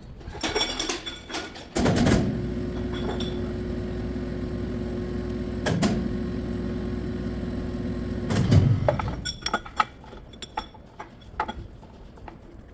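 A machine motor starts and runs with a steady hum for about six seconds, then stops. Scattered knocks and clatter come before and after it, with one knock partway through.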